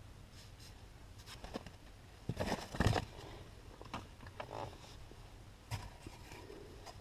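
Plastic seat trim cover being handled and fitted over the seat mount: scattered light scrapes and clicks, the loudest cluster about two and a half seconds in.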